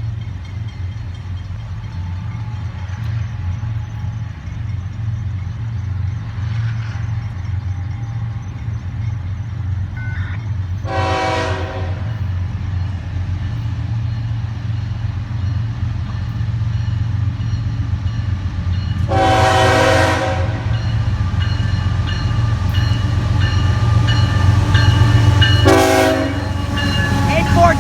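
An approaching train's locomotives rumbling steadily, louder as they near, while the lead locomotive sounds its horn three times: two long blasts and one short one, the long-long-short opening of the signal for a grade crossing.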